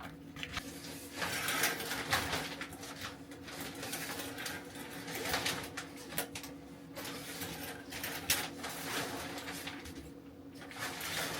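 Plastic shower curtain liner crinkling and rustling in irregular bursts as it is handled and hung, over a steady low hum.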